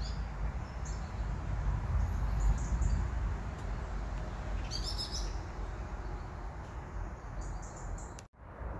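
Garden birds chirping in short, scattered bursts over a steady low outdoor rumble; the sound cuts out briefly near the end.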